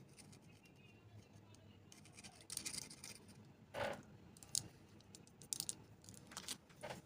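Faint, scattered scratching and light clicks of old, dried thermal paste being scraped and wiped off a mini PC's heat sink.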